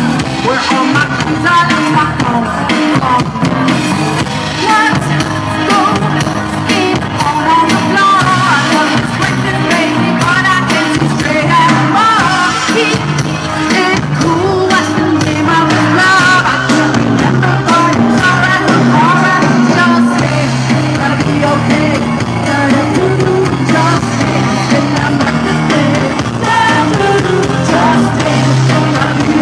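A live band playing a song, with a lead singer's voice over the instruments.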